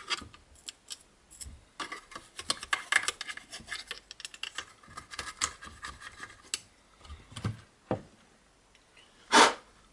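A small brush scrubbing inside an opened power supply, a fast scratchy rubbing with many little clicks that thins out about two thirds of the way through. Near the end a short, loud hiss stands out.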